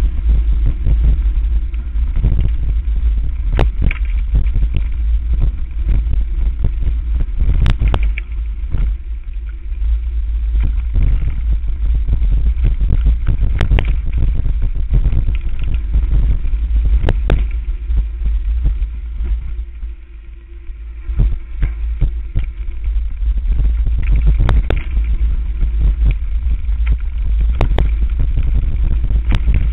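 Mountain bike ridden fast down a rough forest dirt trail, heard from a camera mounted on the bike: a heavy, continuous rumble of wind on the microphone, with rattling and sharp knocks as the bike bounces over the ground. It eases off briefly about two-thirds of the way through.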